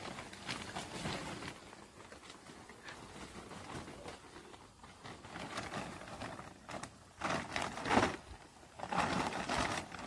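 Intermittent rustling and scuffing from hands working garden soil and handling a plastic sack, growing louder near the end.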